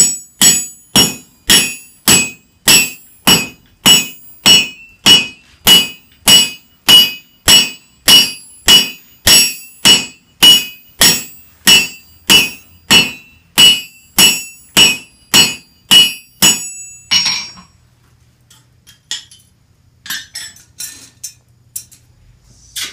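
Blacksmith's hammer striking a hot nail in a nail header over the anvil's hardy hole, heading the nail, at a steady pace of about two blows a second, each blow ringing. The hammering stops about 17 seconds in, followed by a few light metal clinks.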